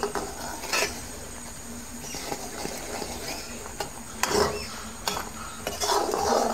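Steel ladle stirring and scraping through a thick gram-flour and sugar-syrup mixture in a metal kadai, with a few louder scrapes and knocks against the pan about a second in, just after four seconds and around six seconds.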